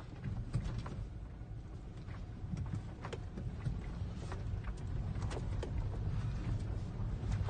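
Nissan Patrol's 4.2-litre diesel engine running with a steady low rumble, with scattered knocks and clicks, growing louder toward the end.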